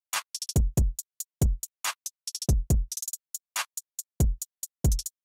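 Programmed 100 BPM hip-hop drum loop with deep kicks that drop in pitch and short hi-hat and snare hits. The rim, off snare, open hat and percussion are muted, leaving a stripped-down beat that sounds like something is missing.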